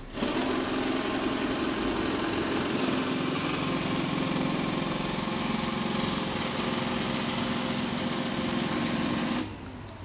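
iRobot Roomba e5 robot vacuum running, its vacuum and brush motors giving a steady hum as it drives back onto its charging dock. The sound cuts off suddenly near the end, as the robot settles on the dock.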